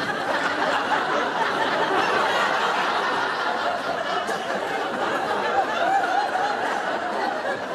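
Studio audience laughing steadily.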